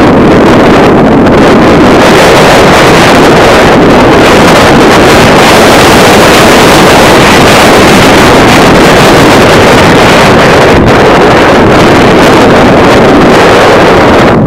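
Heavy wind noise on the microphone, a steady loud rush that overloads the recording and covers everything else.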